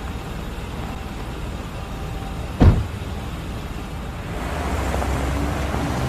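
Car door slammed shut with one heavy thump about two and a half seconds in, over steady street traffic. Near the end the low rumble of traffic grows louder as a car pulls away.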